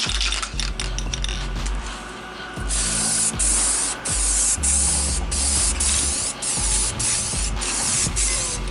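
Aerosol spray can of primer spraying in short passes: a loud, steady hiss from about three seconds in, broken by brief gaps about twice a second.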